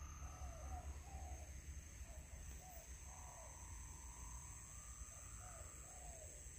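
A dove cooing faintly in short groups of quick rising-and-falling notes, repeated several times. A steady high-pitched drone and a low rumble run underneath.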